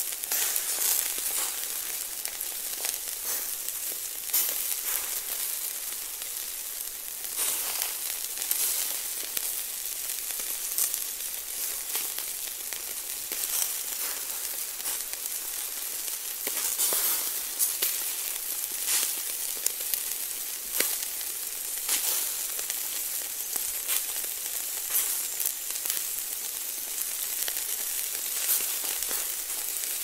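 Food sizzling as it cooks: a steady high hiss dotted with frequent small crackles and pops.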